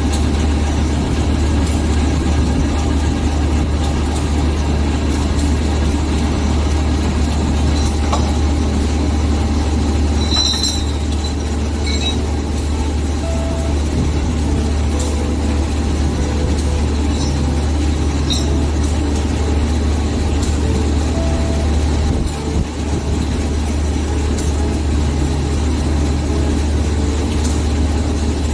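CC201 diesel-electric locomotive idling steadily at standstill with a deep, even hum, with a few light clicks about ten to twelve seconds in.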